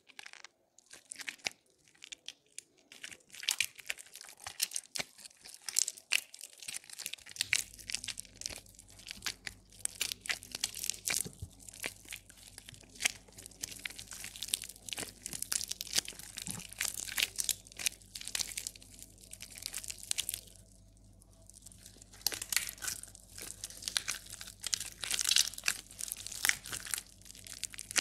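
A soaked bar of soap being squeezed and crumbled between fingers: a dense run of soft, irregular crackles as the softened soap breaks apart, with a brief lull about twenty seconds in.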